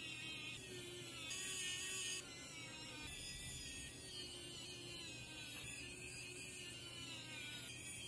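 Faint whine of a small electric screwdriver driving M2.5 bolts straight into 3D-printed plastic standoffs. It is a little louder for about a second near the start.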